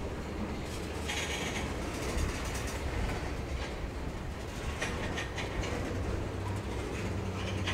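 Freight cars of a train rolling past on the climb: a steady low rumble of wheels on rail, with scattered short clicks and clanks and a brief higher-pitched squeak about a second in.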